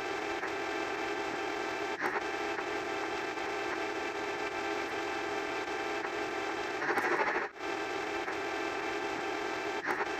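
A steady electronic buzz, rich in overtones, with short clicks where it breaks about two seconds in and again near the end. About seven seconds in it turns louder and harsher for half a second, then drops out briefly.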